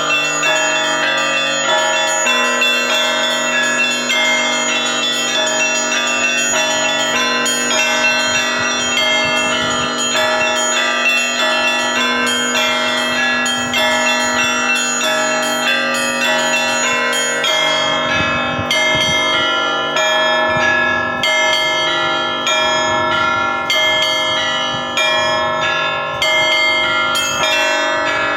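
Russian Orthodox church bells rung together in a continuous fast peal, many bells of different pitches struck in quick succession.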